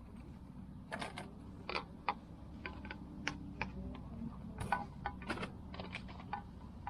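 Irregular metallic clicks and clinks of small steel brake-pad hardware (pad clips and shims) being handled and moved over to a new caliper, over a steady low hum.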